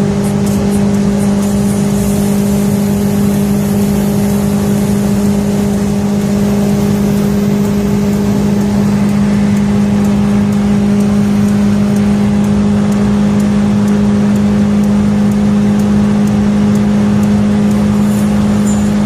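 Tofaş Doğan SX car driving at a steady speed: the engine and road noise make a constant, unchanging drone with a strong low hum.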